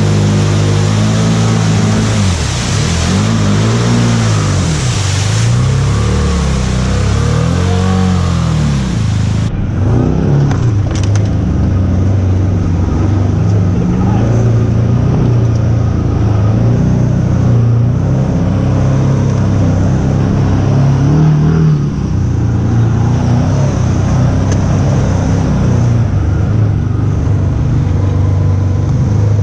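Side-by-side UTV engine revving up and down as it drives through a creek, with water and mud splashing. About a third of the way in this gives way abruptly to a steadier engine drone from on board a side-by-side driving a muddy trail.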